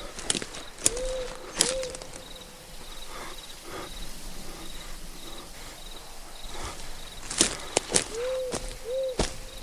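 Night-time ambience: an owl hooting, a pair of short arched hoots about a second in and another pair near the end, over faint steady crickets. Scattered sharp clicks and crunches sound throughout, thickest near the end.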